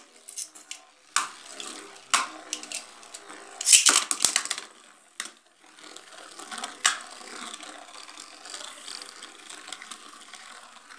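Two Beyblade Burst spinning tops in a plastic basin: sharp clacks and knocks as they are launched and strike each other and the basin wall, loudest in a rattling cluster about four seconds in, then a steady faint whirring scrape of the tops spinning on the plastic.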